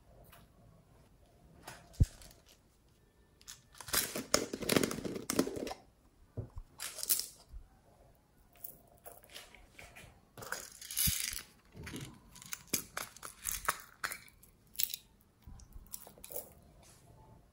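Close-up handling of small plastic makeup containers and craft decorations: a sharp click about two seconds in, a loud scratchy rustle around four to five seconds, then a long string of small clicks, taps and crinkles.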